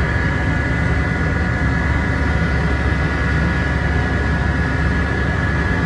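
Steady drone of a fishing trawler's running machinery: a low hum with a constant high-pitched whine over it.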